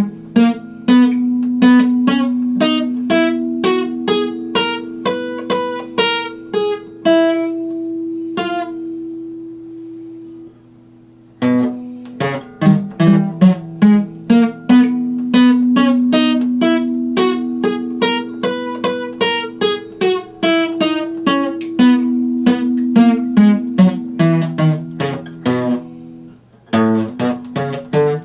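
Acoustic guitar played solo, notes picked one by one over ringing lower notes. About ten seconds in the playing stops and the last chord fades out; it starts again about a second later.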